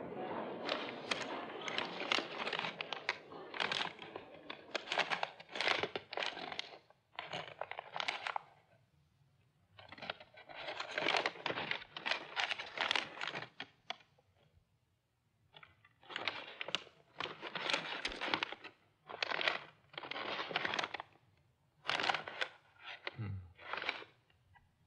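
A sheet of paper notes being crinkled, unfolded and smoothed in the hands: bursts of dry crackling, with a couple of short pauses between them.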